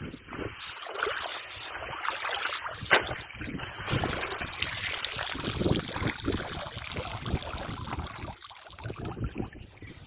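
Wind buffeting the microphone as an irregular rushing noise, with a sharp click about three seconds in.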